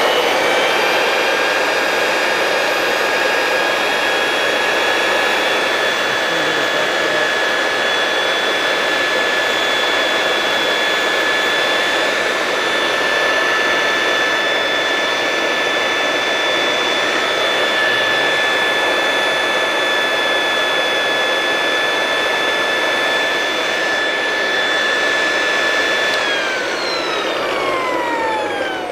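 Clarke B2 floor edger's electric motor running at high speed with a loud, steady whine and hiss while a commutator stone is held against the spinning commutator to seat the new carbon brushes and polish the copper. About 26 seconds in it is switched off and winds down, the whine falling in pitch.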